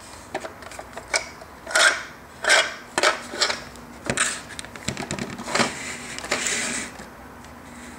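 Hollow plastic clattering and scraping from a Fisher-Price shape-sorter cookie-jar toy as its body and lid are handled, the shape blocks inside knocking about. There is a quick run of sharp knocks, then a longer scrape near the end.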